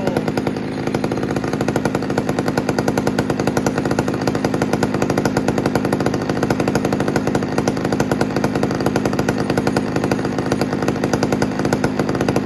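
Homelite Super XL Automatic two-stroke chainsaw engine running at a steady speed shortly after a cold start, its rapid firing even and unbroken.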